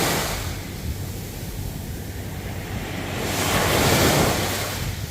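Ocean waves washing on the shore: one wave fades away at the start and another swells and breaks about three to four seconds in, with wind buffeting the microphone as a steady low rumble.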